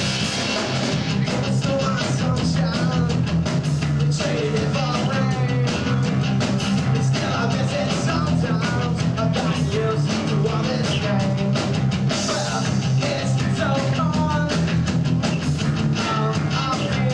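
Live rock band playing loudly: distorted electric guitars, bass and a drum kit keeping a steady beat, with a singer's voice over them.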